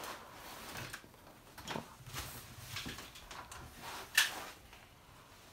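Scattered scuffs and light knocks of people handling things around a car, with one sharp click or knock about four seconds in.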